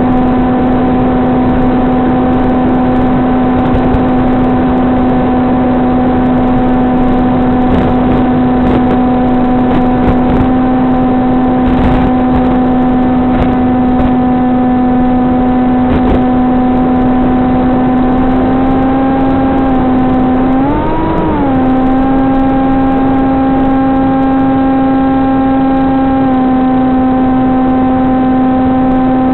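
SunnySky 2212 2450kV brushless motor spinning an APC 6x5.5 propeller on a VAS Banshee flying wing in flight, holding a steady hum at cruise throttle. About twenty seconds in, the pitch swells up briefly and settles back.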